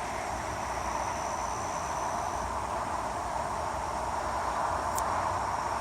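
Steady outdoor ambience: an even hiss of distant highway traffic, with a thin high insect drone that stops about halfway through.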